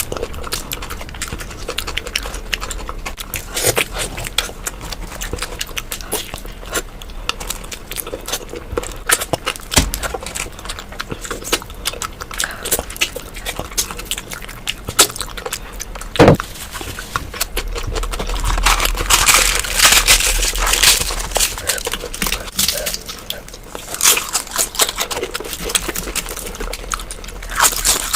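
Close-miked mukbang eating sounds: chewing, lip smacks and wet mouth clicks as puri with curry is eaten. One loud sharp sound comes about 16 s in, and the chewing is louder for a few seconds near 19 to 21 s.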